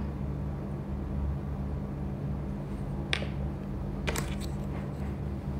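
Steady low hum of room noise, with a few short clicks: one about three seconds in and a quick cluster about a second later.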